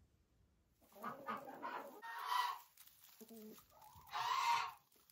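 Domestic chickens clucking and calling, starting about a second in, with two louder, drawn-out calls among the shorter clucks.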